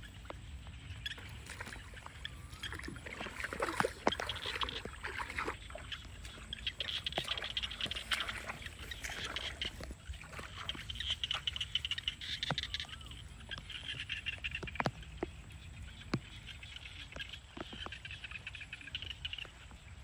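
Bare feet splashing and squelching through shallow muddy water and wet grass, step after step. Over it, frogs call in short trilling bursts that come and go every few seconds.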